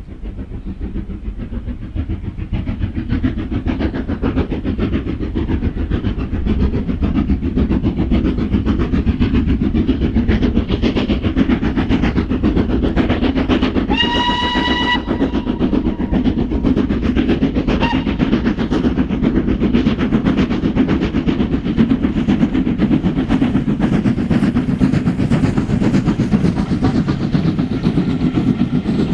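A class five steam locomotive hauling a train, getting louder over the first few seconds, with wheels clattering over the rail joints. About halfway through, the locomotive's whistle gives one short blast.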